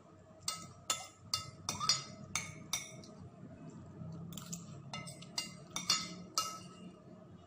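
Metal fork and spoon clinking and scraping against a glass plate, a quick irregular run of sharp ringing clinks, as the last of the fried instant noodles are scooped from the nearly empty plate.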